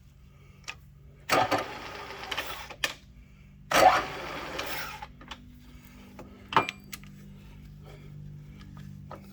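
Tool and machine handling while setting up a tap: two rattling, clattering stretches of about a second and a half each and a sharp click about two-thirds of the way in, over a steady low hum.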